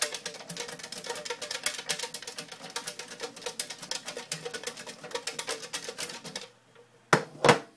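A flat metal tin shaken hard, its contents rattling rapidly against the sides, which mixes up the raffle entries. The rattle stops about a second before the end, followed by two sharp knocks.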